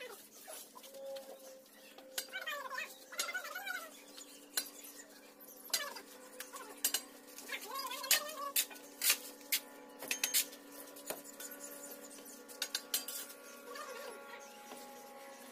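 Steel bricklaying trowels clinking and tapping on fired clay bricks as they are laid and set in mortar: a run of sharp clicks, thickest between about six and eleven seconds in, over a faint steady hum.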